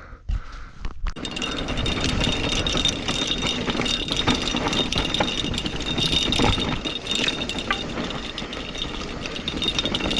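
Mountain bike rolling downhill over rough, rocky dirt from about a second in: tyres crunching, the frame and chain rattling over bumps, and the rear hub buzzing steadily while coasting.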